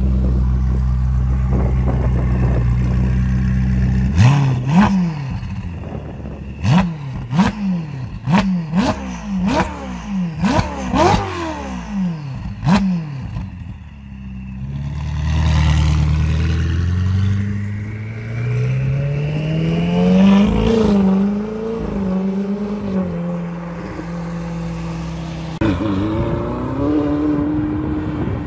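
Ferrari 488 GTB's twin-turbo V8 idling, then blipped hard about nine times in quick succession with sharp cracks from the exhaust between the revs. About fifteen seconds in it accelerates away, rising in pitch through a couple of gear changes, and fades as it drives off.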